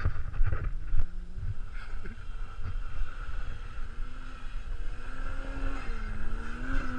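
A Toyota Soarer drift car's engine revving in the snow, its note climbing and dipping several times, over wind rumble on the microphone.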